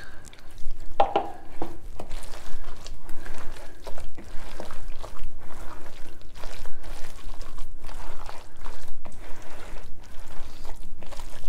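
A hand squeezing and kneading thick gram-flour pakora batter full of chopped potato, onion and rocket leaves in a plastic bowl: irregular wet squelching and crunching strokes.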